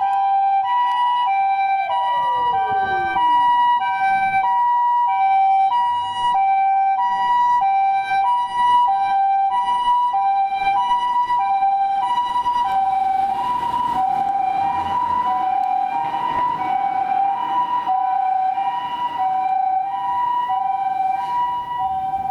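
Japanese ambulance's two-tone electronic siren sounding the alternating high-low "pee-poh" pattern, about one change every half second. A wailing siren falls away in pitch in the first few seconds.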